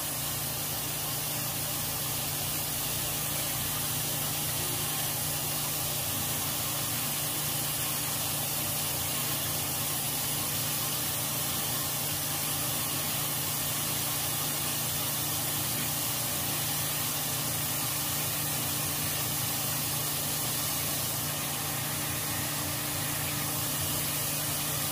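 Battered chicken legs deep-frying in vegetable oil in a skillet, a steady sizzling hiss with a faint steady low hum underneath.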